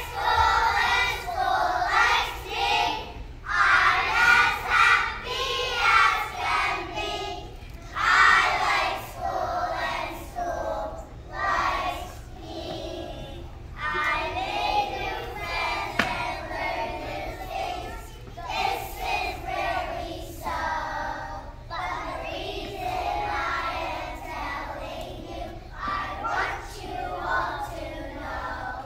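A class of kindergarten children singing a song together in a group, in sung phrases with short breaks between them.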